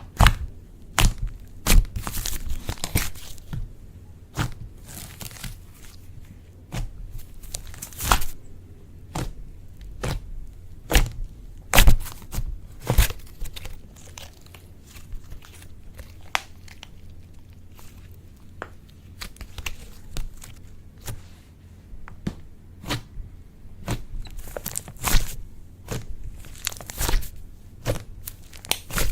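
Slime being mixed and squished by hand, giving irregular sharp pops, clicks and crackles, some much louder than others, over a steady low crackle.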